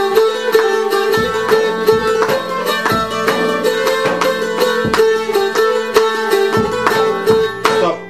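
Bulgarian tambura strummed steadily in the uneven Treno dance rhythm, a melody running over a steady low drone, with regular accented strokes. The playing stops near the end.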